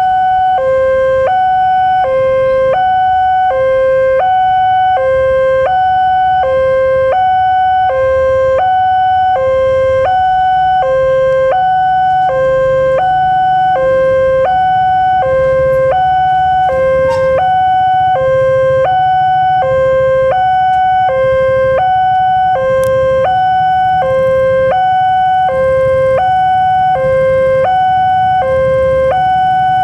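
Railway level-crossing warning alarm from the loudspeaker on the crossing signal, sounding a steady two-tone hi-lo signal, high and low notes alternating about every three-quarters of a second. It warns that a train is approaching the crossing.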